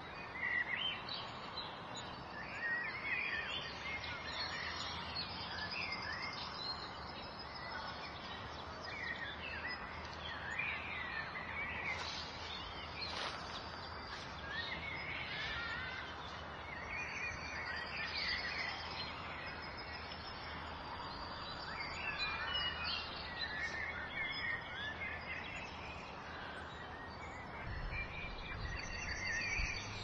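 Several songbirds chirping and trilling over a steady haze of suburban background noise, with a low rumble swelling near the end.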